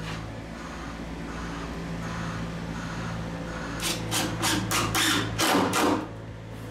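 Cordless drill/driver driving screws into the pine staircase in a run of short bursts from about four seconds in, over a steady low hum.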